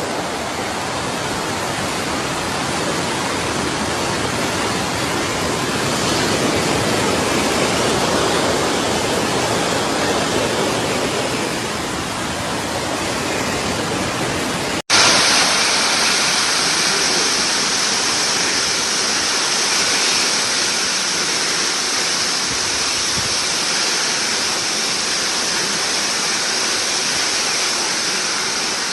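Heavy rain pouring steadily, a dense, even rush of water. A sudden cut about halfway through switches to a second recording of the rain that is brighter and hissier.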